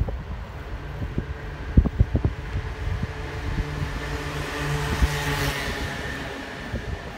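Wind buffeting the microphone on a moving bicycle, with knocks and rattles from the bike over the road surface. A low hum and rushing noise swell to a peak about five and a half seconds in.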